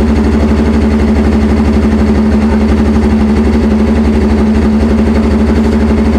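Race motorcycle engine idling at a steady speed: a loud, even pulsing sound with no change in revs.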